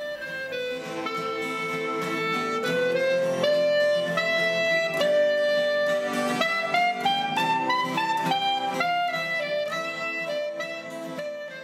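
Instrumental music with a melody line and a steady beat, fading out at the end.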